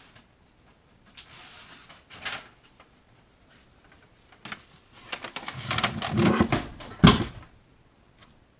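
Handling noises: a brief rustle and a knock, then a couple of seconds of dense rustling and crinkling full of small clicks, ending in a sharp knock about seven seconds in.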